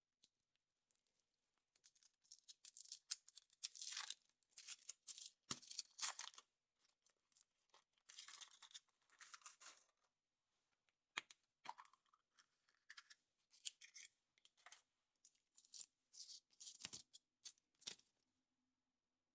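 A wrapper being torn open and crinkled by hand in a series of short rustling bursts, with a few sharp clicks, quiet overall.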